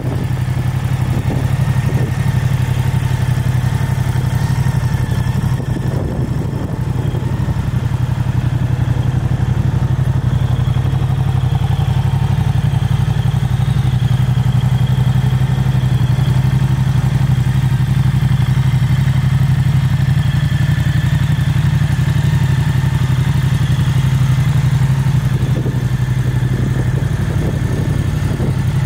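Moto Guzzi V100 Mandello S's transverse V-twin engine idling steadily.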